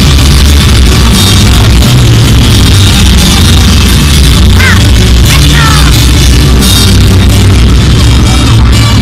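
Loud music over a public-address system accompanying a couple's dance, with a heavy, steady bass and a few short sliding high notes about halfway through.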